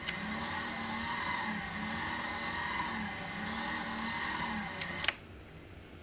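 Small battery-powered electric motor of a Casdon Hoover Electron 1100 toy washing machine starting with a click and turning the drum of wet whites, a steady high whine over a hum whose pitch sags about every second and a half. It stops about five seconds in with a couple of clicks. The owner finds the drum struggling to turn and thinks the motor needs replacing.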